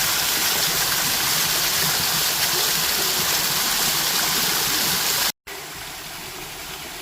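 Steady rush of a creek waterfall. It cuts out abruptly a little past five seconds in and returns as a quieter, steady rush.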